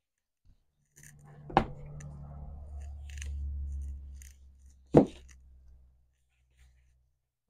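Plastic nursery pots being lifted and set down: two sharp knocks about three seconds apart, with light rustling between. Under them a low steady hum swells and fades.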